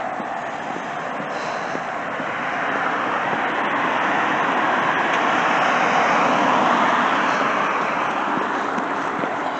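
A car passing on a street, its tyre and road noise swelling to a peak about two-thirds of the way through and then fading.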